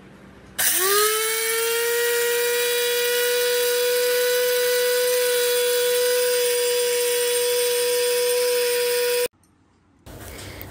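Nima 150-watt mini electric spice grinder with a metal blade in a stainless-steel bowl, grinding whole spice seeds: the motor spins up about half a second in, its pitch rising fast, then holds a loud steady high whine over a hiss, and cuts off abruptly near the end.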